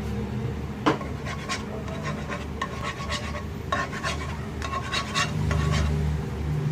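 Utensil scraping and tapping against metal kitchenware as thick sweetened condensed milk is added to a pan of egg yolks, with a sharp clink about a second in and a string of short scrapes after. A steady low hum runs underneath.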